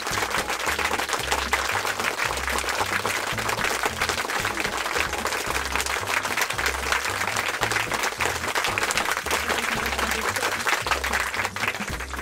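Batter-coated shrimp deep-frying in hot oil: a dense, steady crackle and sizzle, over background music with a steady bass beat.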